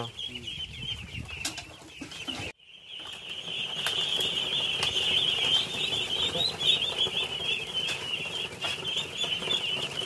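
A large flock of young ducks calling all together, a dense, continuous chorus of high peeps. The sound drops out briefly about two and a half seconds in, and the chorus is faint before that and full after it.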